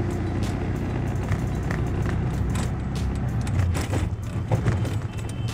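Auto-rickshaw engine running steadily, heard from inside the open cabin while riding, with frequent short rattles and knocks from the vehicle's body.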